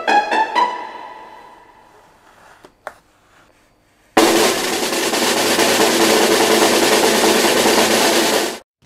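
A short musical jingle ends on a rising run of notes and rings away; after a nearly quiet pause with a couple of faint clicks, a loud drum roll sound effect starts suddenly about four seconds in and cuts off abruptly just before the end.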